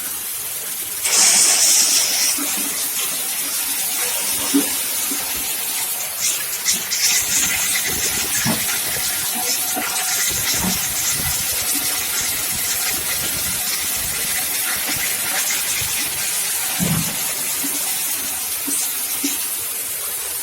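Candlenut cracking machine running with a steady high hiss, with scattered clicks and a few dull knocks from nuts and shells passing through.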